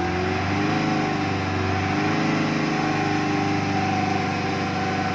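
2017 Kia Carnival's engine revved and held at about 3,500 rpm, its pitch wavering a little, a free rev used to show how heavily the engine smokes before any oil change.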